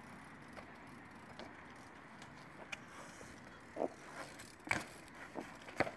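BMX bike ridden on concrete: faint tyre noise with a few sharp knocks and clicks from the bike during tricks, from about halfway through to near the end.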